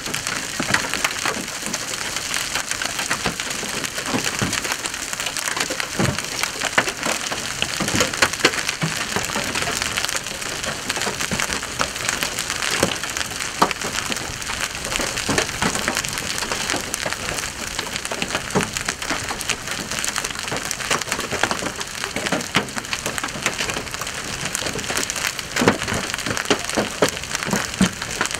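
Heavy rain mixed with large hail coming down hard: a steady hiss peppered with frequent, irregular sharp knocks of hailstones striking.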